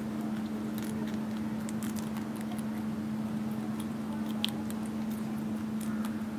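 Rabbits nibbling and scuffling on a concrete floor: scattered soft clicks and taps, with one sharper tick a little past four seconds in, over a steady low hum.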